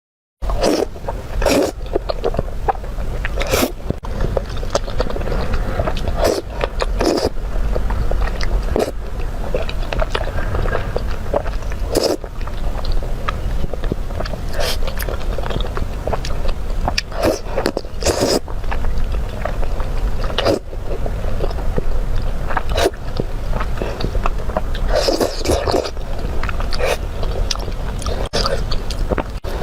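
Close-miked eating sounds: a person biting and chewing food, with irregular mouth smacks throughout. A steady low hum runs underneath.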